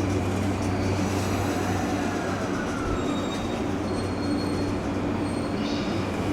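Electric commuter train running through the station, a steady motor hum with a faint falling whine in the middle and thin high wheel squeal about halfway through.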